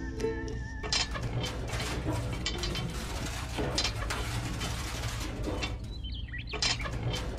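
Ukulele music ends about a second in, giving way to a small geared electric motor of a miniature model machine running: a dense, fast rattle of clicking gears over a steady low hum, with a brief dip near the end.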